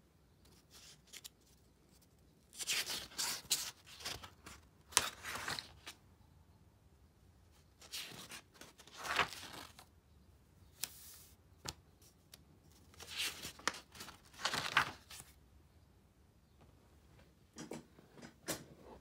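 Paper of a spiral-bound sketchbook rustling and scraping in several bursts of a second or two as the pages are turned and handled.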